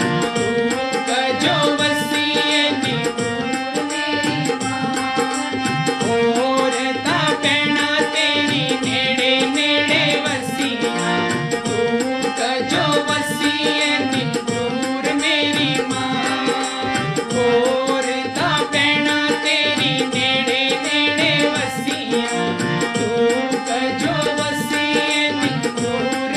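Devotional bhajan music: a harmonium melody over a steady percussion rhythm, with a man singing along.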